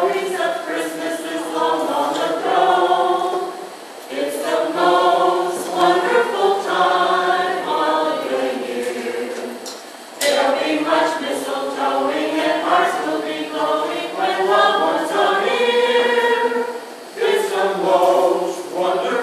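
A small mixed group of carolers, men and women, singing a Christmas carol together in harmony, a cappella, in sung phrases with short breaks between lines.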